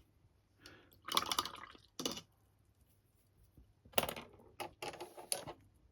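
A few short clinks and scrapes of small painting tools being handled, in bursts at about 1, 2 and 4 seconds in and a quicker run of taps near the end, like a paintbrush being worked in a water pot and tapped against it.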